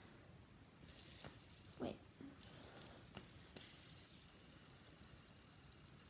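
Gold-coloured fidget spinner handled with a few light clicks, then flicked into a spin about halfway through, its bearing giving a faint, steady high whir.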